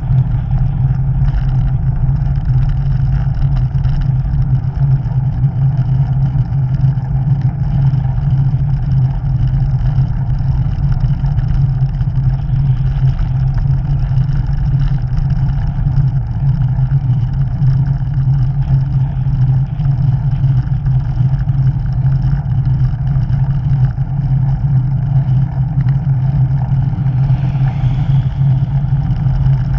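Steady, loud rumble of wind buffeting and road noise on a low-mounted action camera moving along an asphalt road. A car overtakes near the end.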